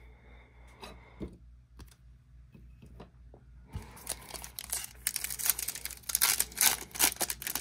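Wrapper of a Topps baseball card pack crinkling and tearing as it is ripped open by hand. It starts about halfway through, after a few light clicks of cards being handled.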